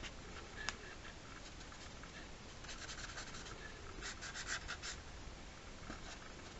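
Sharpie marker tip scratching across paper in short, quick strokes, in two runs of rapid hatching near the middle.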